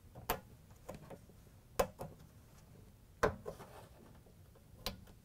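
Tri-ring retaining clip being pressed and snapped onto a dryer drum support roller axle: four sharp clicks about a second and a half apart, with fainter handling ticks between.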